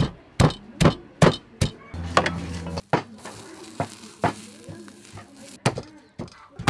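A wooden pestle pounding lemongrass and chili in a mortar, sharp knocks about two and a half a second. Then a faint hiss of a flame singeing a duck over a grill, with a few scattered knocks, and near the end cleaver chops on a wooden board.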